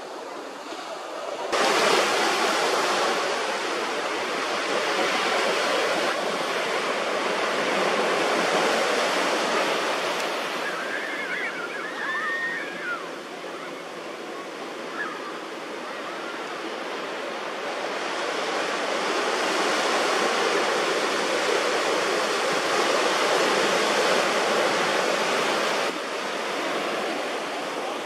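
Ocean surf breaking and washing up the beach, a steady rush that swells and eases over several seconds and jumps louder about a second and a half in. A few faint high-pitched calls sound briefly near the middle.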